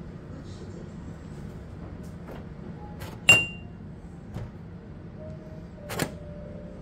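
Kitchen items clinking and knocking as they are set down, over a steady low hum. The loudest is a sharp clink with a brief ring about three seconds in, and a second knock comes near the end.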